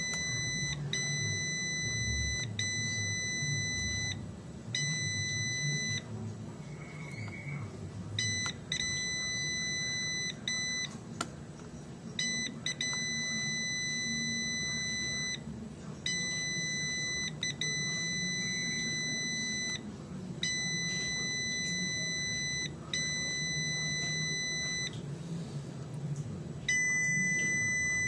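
A digital multimeter's continuity buzzer beeps a steady, high single tone that starts and stops over and over in stretches of one to a few seconds. Each beep marks the probes finding a low-resistance path on the laptop mainboard while a short is being hunted.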